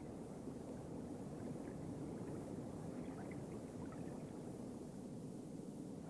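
Steady low underwater rumble, a dull wash of water noise, with a few faint high ticks in the middle.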